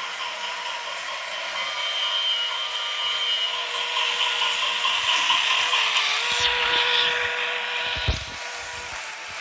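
Braskit battery toy train running: its small electric motor and gears whir steadily, getting louder toward the middle. About eight seconds in there is a single knock, and after it the whirring is quieter.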